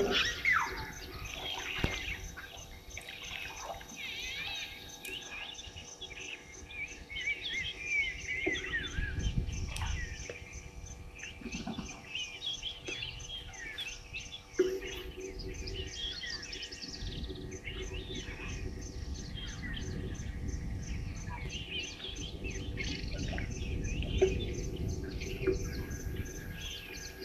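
Many birds chirping and singing at once in the bush, with a low rumble underneath from about a third of the way in.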